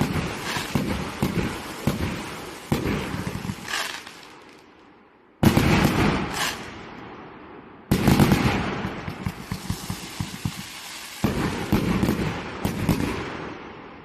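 Pot-flower firework (item 9138) going off: dense pops and crackling that fade away, then start up again abruptly three times, about 5, 8 and 11 seconds in.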